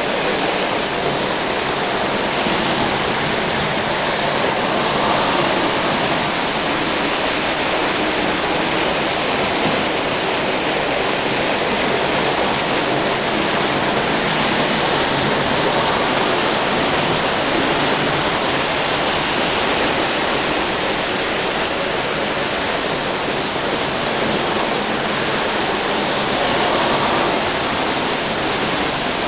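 Vintage pre-1964 Lionel three-rail toy train running around the track, a steady rushing rumble of wheels and motor that swells a few times as the train comes near.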